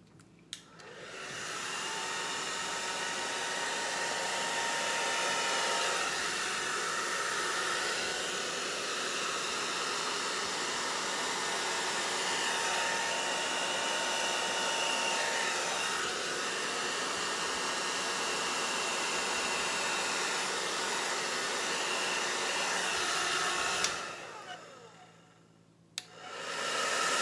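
Handheld hair dryer running steadily with a faint whine, blowing air onto wet paint. It switches on just after the start and off a few seconds before the end.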